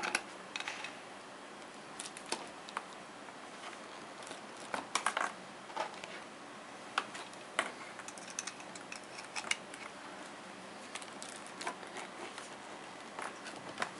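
Cable leads and plastic plugs being handled and pushed into connector sockets: irregular light clicks and rustling over a faint hiss.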